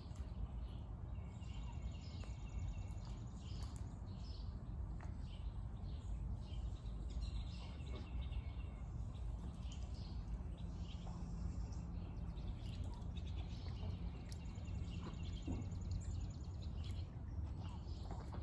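Outdoor ambience: a steady low rumble under repeated high chirping bird calls, some drawn out into short trills.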